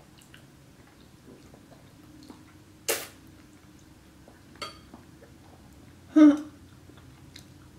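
Close-up eating sounds of fettuccine alfredo: quiet open-mouthed chewing of creamy noodles, broken by short wet mouth sounds, one sharp one about three seconds in, a smaller one at about four and a half seconds, and the loudest, with a voice-like tone, just after six seconds.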